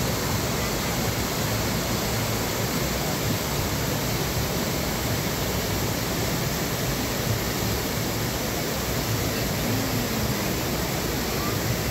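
Steady rush of a rocky river running over small rapids.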